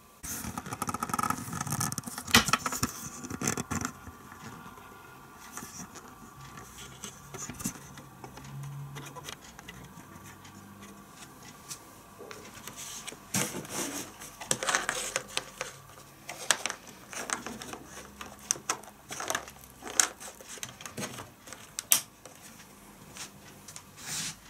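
Handling noises from an Ethernet cable being moved about a desk and plugged into a laptop's network port: scattered clicks, scrapes and rubbing. They come in a busy stretch at the start and again in the second half.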